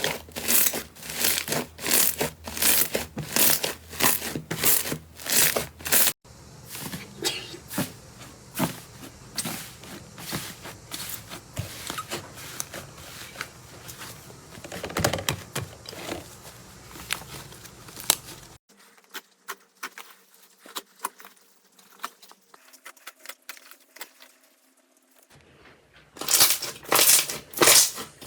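Slime being squeezed and pressed by hand, giving repeated crackling, popping squishes. They are loud and regular at first, then denser and softer, then only a few faint clicks, before loud squishes return near the end.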